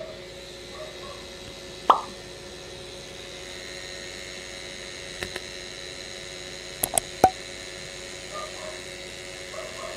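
Sound effects of an animated outro card: one short pop about two seconds in, then a few sharp clicks, two near five seconds and three around seven seconds. A faint steady hum runs underneath.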